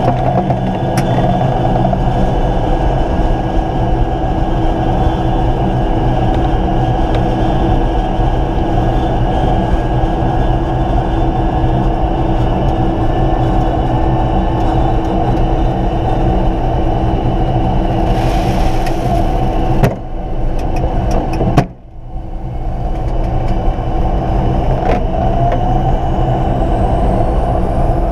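Air Tractor 802 turboprop engine and propeller droning steadily, heard from inside the cockpit. A sharp click about 22 seconds in, followed by a brief drop in level that recovers over a couple of seconds.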